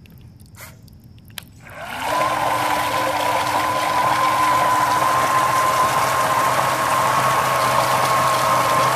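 The 3D-printed RC snow blower's electric motor switching on about two seconds in and spinning up in a moment to a steady whine, driving the auger through a Traxxas differential. Its auger throws water out of the chute in a loud, steady rushing splash.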